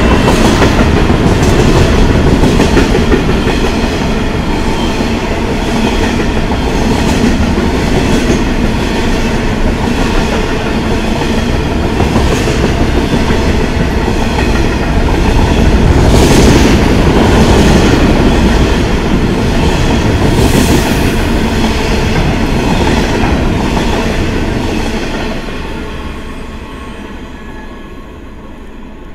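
Freight train passing close by on the rails, its wagon wheels knocking over the rail joints in a steady repeating rhythm, then fading away over the last few seconds.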